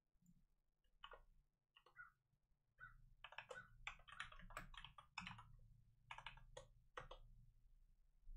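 Faint typing on a computer keyboard: a run of short, irregular key clicks, thickest in the middle.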